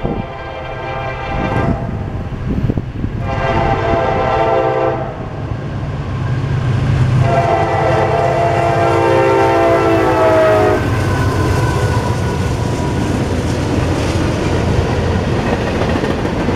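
CSX freight locomotive's air horn sounding for the grade crossing: the end of one blast, a short blast about three seconds in, then a long blast from about seven to eleven seconds, over a steady low rumble. After the horn stops, the train's cars roll through the crossing.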